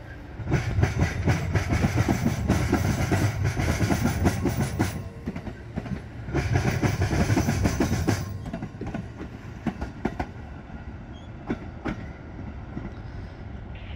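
Amtrak Superliner bilevel passenger cars rolling past as the train departs, steel wheels clattering over the rail joints. It is loudest in two stretches in the first half as the wheel sets go by, then fades to a low rumble with a few scattered clicks as the train moves away.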